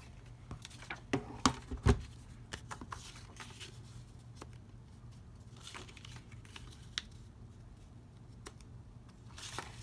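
Pieces of card being handled and set down on a craft table: a few sharp taps and knocks between about one and two seconds in, scattered light clicks after, and a paper rustle near the end.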